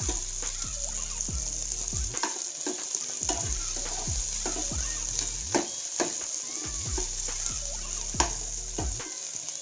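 Chopped onions sizzling in hot oil in an aluminium pan as they fry, stirred with a slotted metal spoon that scrapes and clicks against the pan again and again, two clicks sharper than the rest about five and a half and eight seconds in.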